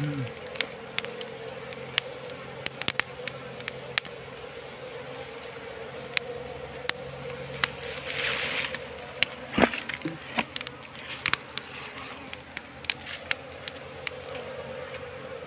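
A colony of honey bees buzzing steadily at their nest as smoke is driven into it. Scattered sharp clicks run through the buzz, with a brief rustle about eight seconds in and a sharper knock soon after.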